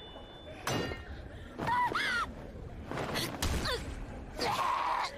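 A few short, strained cries and gasps from an anime voice track, separated by pauses, with thuds among them.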